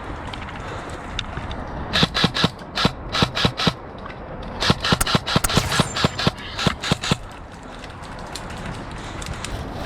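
Airsoft gun firing two quick strings of shots, about five cracks a second: one string of about eight shots some two seconds in, then a longer string of about a dozen after a short pause.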